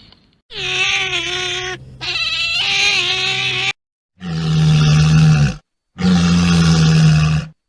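Animal calls cut together from separate clips: one pitched call lasting about three seconds, then two long, low calls of about a second and a half each, every clip starting and stopping abruptly.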